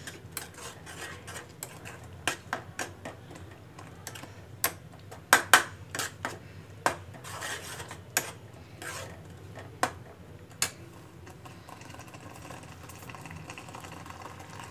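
A metal spoon stirring grated raw mango and sugar in a metal kadhai, scraping and clinking irregularly against the pan's sides and bottom. The clinks are loudest about five to six seconds in and die away after about eleven seconds, once the spoon is left resting in the pan.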